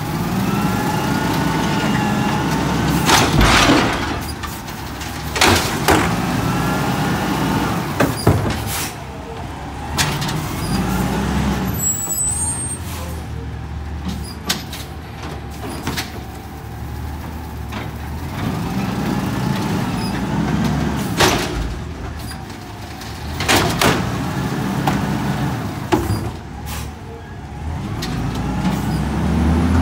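Garbage truck's engine running and revving in surges while the hydraulic lift whines up and down, with about eight sharp bangs of trash bins being slammed and knocked against the truck during the collection cycles.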